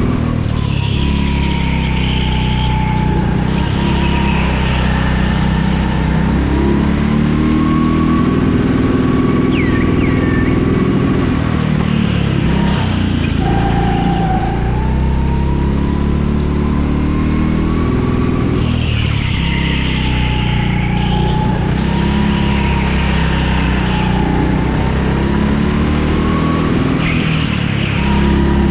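Go-kart engine running under throttle, its pitch rising and falling with the corners. Short higher-pitched squeals of the tyres come in several of the turns.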